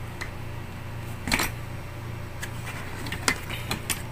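Handling of a brass cutting torch and its manual on a cardboard box: a few light clicks and taps, the loudest about a second in, over a steady low hum.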